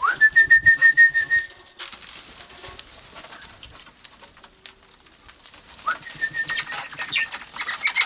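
Wild Australian king parrots flapping and scrabbling as they fly in and land, with a high whistle that glides up and then holds on a warbling note for about a second and a half at the start, and again more briefly near the end.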